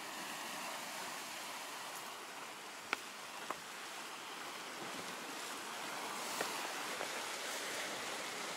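Sea surf washing steadily against a rocky shore, swelling slightly later on, with a few brief sharp clicks over it.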